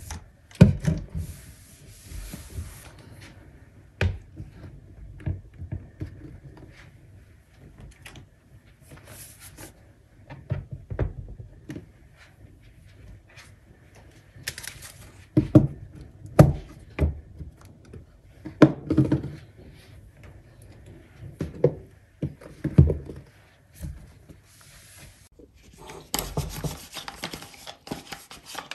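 Handling sounds on a hard desk: a laptop and other objects knocked and set down in scattered thuds, with several short swishes. Near the end, a lint roller rolls steadily over a velvet chair's upholstery with a continuous rubbing sound.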